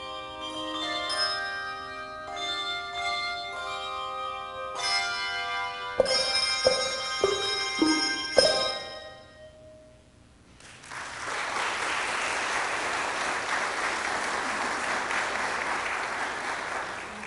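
Handbell choir ringing the end of a piece: chords of many bells, then four struck notes stepping down in pitch that ring away. About ten seconds in, an audience applauds for roughly seven seconds.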